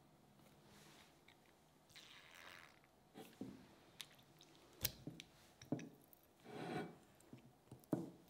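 Stainless steel meat injector pushing marinade into a raw whole chicken: soft wet squishes as the plunger is pressed and the bird is handled, with a few sharp metallic clicks and taps in between.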